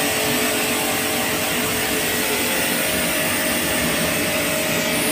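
Pressure washer running steadily, its spray gun jetting water to rinse shampoo foam off a motorcycle: an even motor hum under the hiss of the spray.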